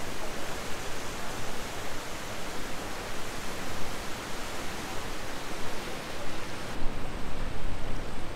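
Rushing water: a steady, even hiss. Near the end the hiss thins and a low rumble comes up.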